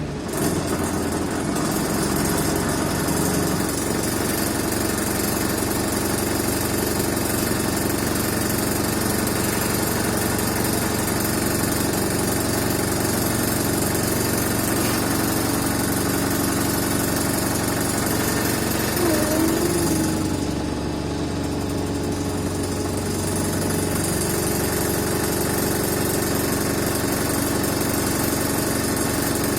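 Wright Eclipse bus engine running at idle: a constant drone with a steady hum, the unusual noise that is called a strange sound.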